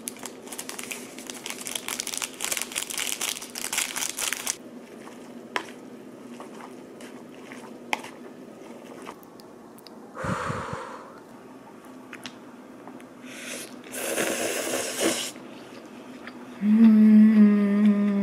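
Crinkling and clicking as a plastic fork stirs a sauce packet's contents into instant yakisoba noodles in a plastic tray, then noodles slurped in the middle. Near the end a loud, long hummed "mmm" while eating.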